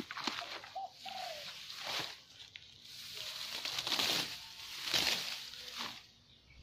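Grass being pulled up by hand: a string of rustling, tearing swishes of leafy grass stems, one every second or so, dying away near the end. A bird calls briefly about a second in.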